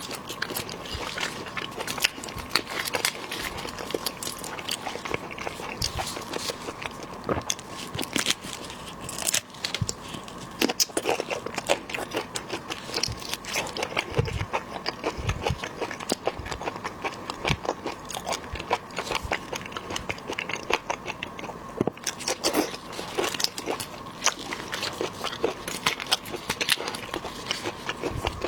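Close-miked eating of shellfish: dense, irregular crackling and clicking of shells being cracked and peeled, mixed with wet biting and chewing.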